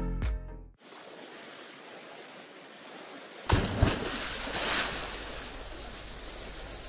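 The last notes of the background music end within the first second, then a faint hiss. About three and a half seconds in, a sudden thump opens a steady rush of water-like noise: a splash sound effect for an animated logo.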